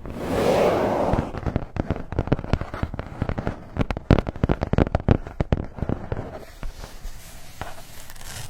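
Rapid, irregular ASMR tapping and clicking on a refrigerator, after a brief rush of noise in the first second. The taps come dense and loud, then thin out and fade toward the end.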